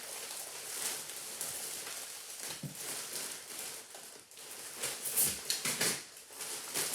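Rustling and crinkling of packaging as a taped-up package is worked open by hand, with a cluster of louder crackles and rips near the end.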